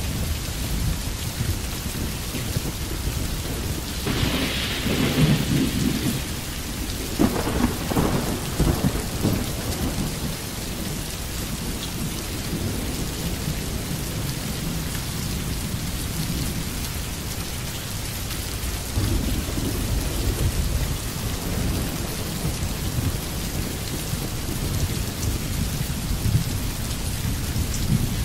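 Steady rain with rumbles of thunder, the louder rolls coming between about four and ten seconds in.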